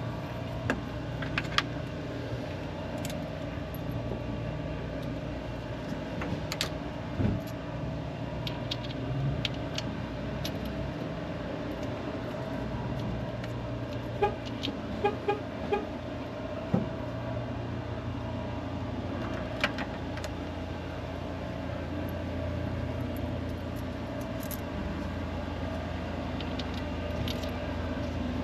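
Scattered metal clicks and knocks of hand tools and bolts being worked on a car engine, over a steady background hum, with a few short high chirps about halfway through.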